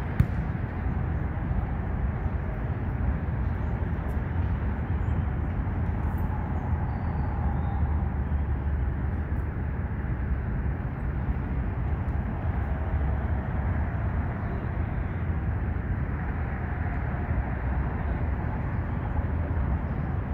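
Steady low rumble of road traffic on an elevated highway, with one sharp knock just after the start.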